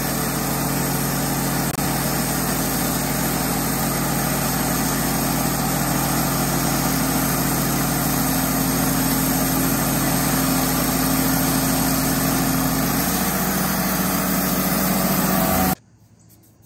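Wood-Mizer LT15 portable band sawmill running under load, its engine steady while the band blade cuts through a pine log. The sound cuts off suddenly near the end.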